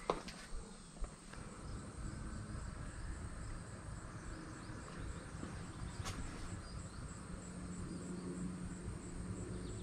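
Cricket chirping steadily in a high-pitched, evenly repeating pulse, about two to three chirps a second, over a low rumble. A few sharp clicks come in the first second, and one more about six seconds in.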